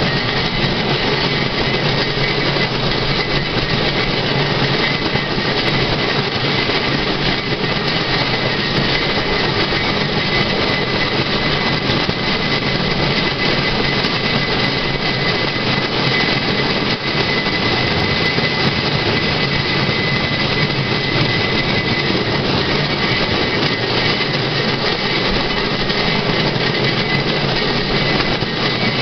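Steel wheels of a pedal-powered rail draisine rolling steadily along the track: a dense, even rumble and hiss with a faint high whine held throughout.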